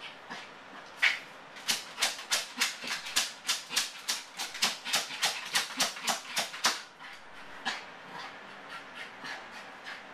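Yorkshire terrier clawing and scratching at a door in a fast run of sharp scrapes, about four a second, for some five seconds, then stopping; the frantic scratching of a dog with separation anxiety.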